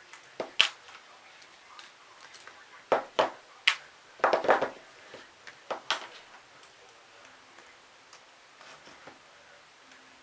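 Small metal tools and engine parts clicking and clinking against each other and the bench during hand disassembly of a model glow engine: about a dozen sharp clicks in the first six seconds, then faint handling noises.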